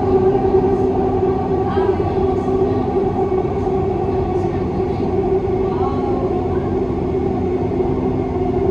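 Dubai Metro train running between stations, heard from inside the car: a steady rumble with an even, unchanging electric hum that holds its pitch throughout.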